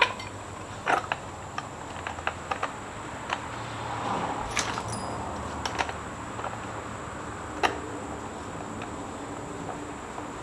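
Scattered light metallic clicks and taps of small parts being handled while the K&N air filter cover is fitted onto the intake, over a steady low hum.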